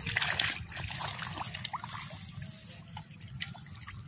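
Shallow water in a flooded rice paddy splashing and trickling around feet wading through the muddy field, with many small splashes.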